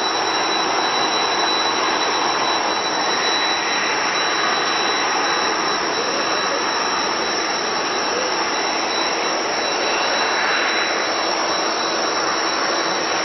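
Jet airliner engines running: a loud, steady rush of noise with a thin high whine held on one pitch.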